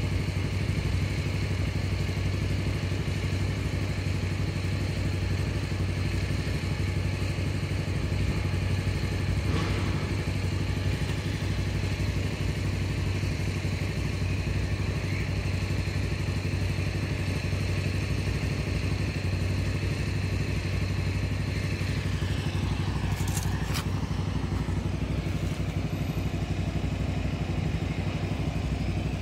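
A vehicle engine idling steadily, a low even hum that holds throughout with a couple of brief clicks.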